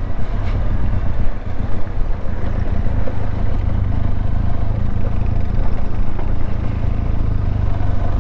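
Benelli TRK 502X motorcycle's parallel-twin engine running steadily under way, with heavy low rumble from wind and road on the camera microphone.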